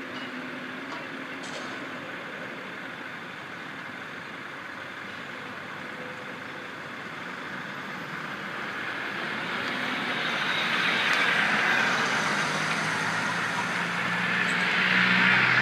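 Road traffic moving off across a level crossing: steady tyre and engine noise that grows louder from about halfway through as vehicles pass close by, with an engine's low hum coming in near the end.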